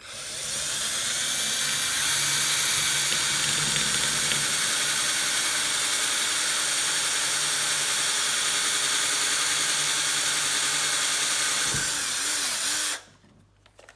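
Electric drill running a 3.2 mm bit through a vintage quick release skewer. It spins up in the first second, runs at a steady high whine, wavers briefly near the end and stops about a second before the end.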